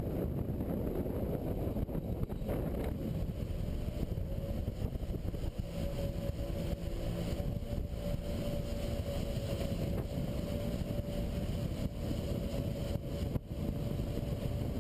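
Twin Rotax 4-TEC four-stroke engines of a Sea-Doo Islandia jet boat running under way at steady speed, a dense rumble with wind on the microphone. A steady whine comes in about three seconds in and holds.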